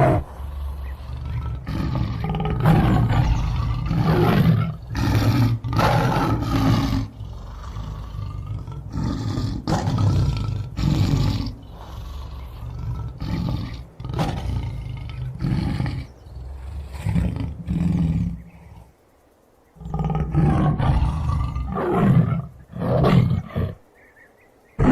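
Tiger roaring, a run of repeated deep roars one after another, with a short silence about three-quarters of the way through.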